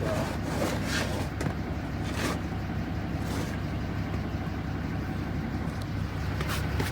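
Truck engine idling steadily, with a few brief scrapes and knocks over it.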